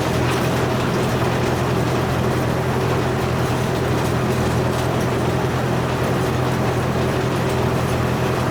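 An engine running at a steady speed with an even, unchanging hum and no load changes.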